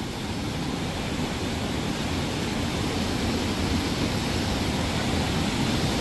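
Waterfall rushing with a steady, even sound of falling water.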